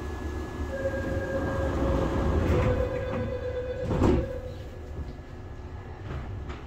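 Sliding passenger doors of an AREX commuter train closing. A steady tone sounds while they move, and they meet with a loud thump about four seconds in, over the low hum of the carriage.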